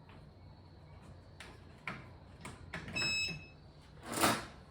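A few light clicks as a plug is pushed into an outlet, then a short high electronic beep about three seconds in as the digital countdown clock powers up. A brief rush of noise, the loudest sound, follows about a second later.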